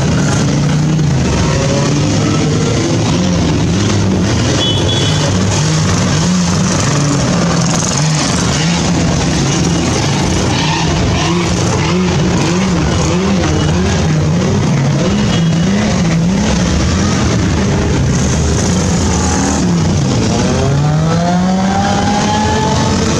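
A steady stream of motorcycles riding past, several engines running at once, their pitch rising and falling as riders work the throttle. One engine revs up steadily near the end.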